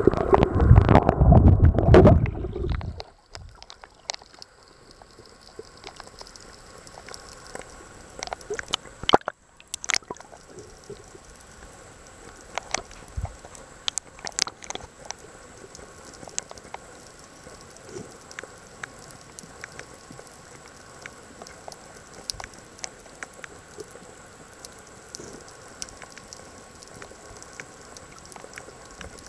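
Water heard underwater through a camera housing: loud low churning for about the first three seconds, then a quieter steady underwater background with scattered clicks and crackles.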